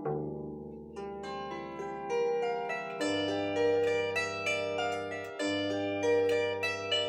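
Solo bandura playing: a melody of plucked treble strings ringing over low bass notes that are struck afresh about three seconds in and again near five and a half seconds.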